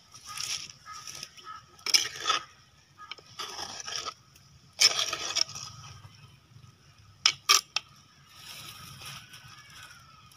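A metal spoon stirring and scraping a thick fish-and-grated-coconut mixture in a clay pot, in several separate strokes, with two sharp clicks a moment apart about seven seconds in.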